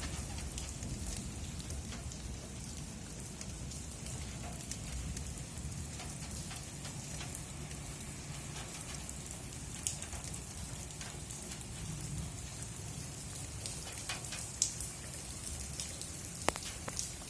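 Steady rain falling, with single drops ticking sharply on a surface now and then, a few louder ones near the end.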